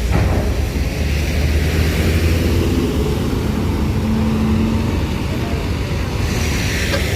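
Heavy vehicle's diesel engine running with a steady low rumble, with a faint low hum rising out of it for about a second around the middle.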